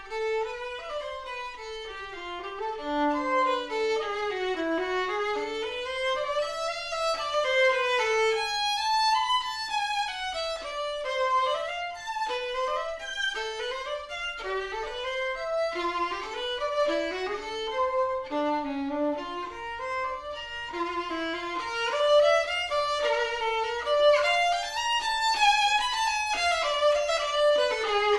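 Background music: a single unaccompanied melody line playing fast, winding runs of notes that sweep up and down over a wide range.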